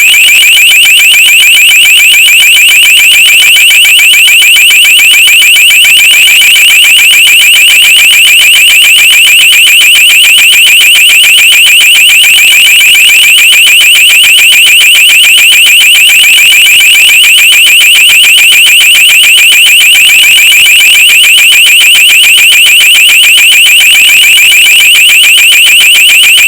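Electronic alarm sounding continuously: a very loud, high-pitched tone pulsing rapidly and evenly, unchanging throughout.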